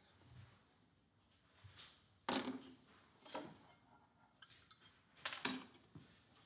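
Small metal tools and parts clinking and knocking on a workbench as they are picked up and set down: several separate clinks, the loudest a little over two seconds in.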